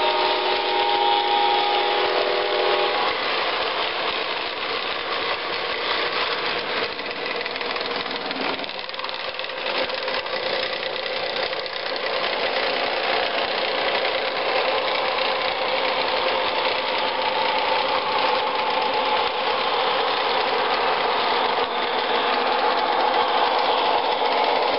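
MTH O-gauge model Amtrak Genesis diesel locomotive running on three-rail track: its onboard sound system plays a steady diesel engine drone over the rumble of wheels and motors on the rails. A multi-note horn chord sounds for the first few seconds.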